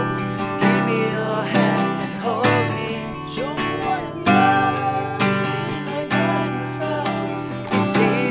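Acoustic guitar strummed in a steady rhythm, with a voice singing a wavering melody over it.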